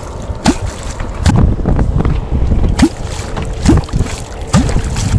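A catfish kvok struck into the water by hand, its cupped heel slapping the surface a little faster than once a second and each stroke making a deep, hollow 'kvok' gulp. This is the call used to bring wels catfish up from the depth.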